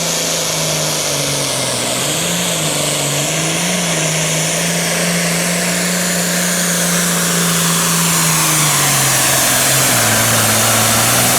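Turbocharged diesel Super Farm pulling tractor at full throttle, dragging the weight-transfer sled down the track, its engine note loud and steady with small wavers. About nine seconds in the note drops lower as the tractor slows under the load near the end of its pull.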